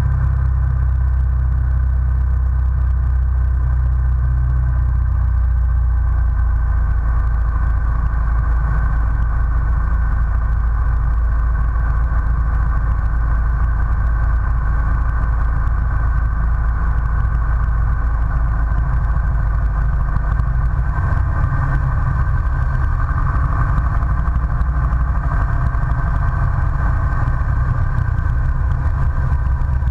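Single-engine light aircraft's engine and propeller running steadily in flight on final approach, a constant drone with a deep rumble.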